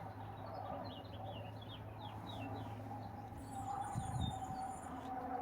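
A bird chirping in a quick run of short, falling notes, with a soft thump about four seconds in.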